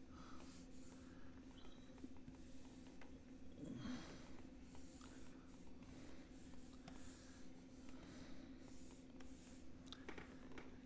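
Faint scratching of a stylus on a graphics tablet in short strokes, over a steady low hum, with one brief soft sound about four seconds in.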